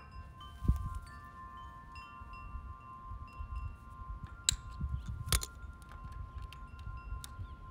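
Several chime tones ring and fade, overlapping one another. About halfway through come two sharp metallic clicks, and a dull thump falls about a second in, while a screwdriver works the generator's alternator end cap loose.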